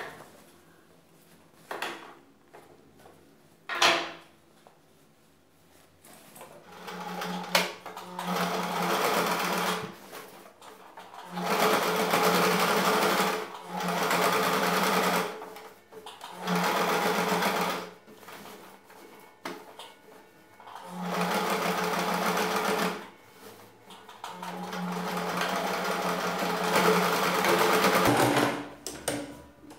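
Domestic electric sewing machine stitching through thick denim, running in about six short bursts of one to four seconds with pauses between them as the fabric is guided along. A few sharp clicks come in the first seconds, before the first run.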